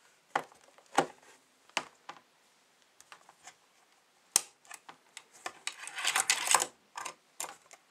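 A card collector's ring binder with plastic sleeve pages being handled: a few sharp clicks and knocks, then a burst of plastic rustling about six seconds in as a page is moved.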